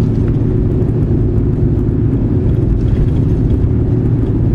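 Steady low drone of a car driving along an open road, heard from inside the cabin: engine and tyre noise, with no change in pitch or level.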